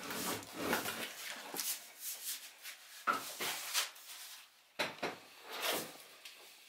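Hands rubbing and shifting a long cardboard packaging tube as it is tilted upright, with a couple of knocks about three and five seconds in as its end meets the bench.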